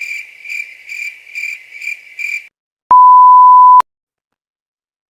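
Cricket chirping sound effect, pulsing about twice a second, that cuts off about halfway through. It is followed by a loud, steady pure beep lasting just under a second, the standard censor bleep tone.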